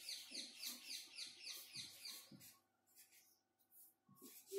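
Felt-tip marker squeaking faintly on a whiteboard as a word is written: a quick run of short squeaky strokes, about four a second, that stops after about two and a half seconds. A soft knock comes near the end.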